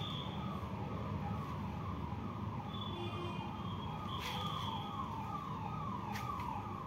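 A siren-like electronic alarm sounding a fast repeated falling tone, about two sweeps a second, that stops near the end, with a couple of sharp clicks partway through.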